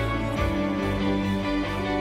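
Instrumental background music with held notes that change every second or so.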